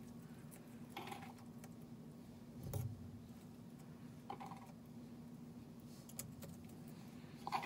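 Faint, scattered clicks and taps of feeding tweezers working in a cricket cup, picking out live crickets, with one duller knock about three seconds in.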